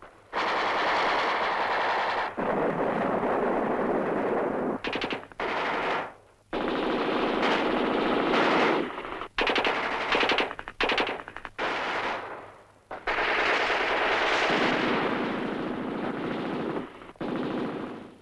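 Long bursts of automatic gunfire, each lasting one to several seconds, broken by short pauses; the longest burst, about four seconds, comes near the end.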